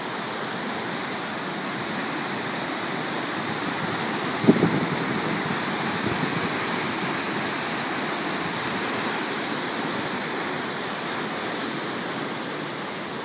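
A flooded brook's muddy water rushing steadily over a low concrete weir. There is a brief thump about four and a half seconds in.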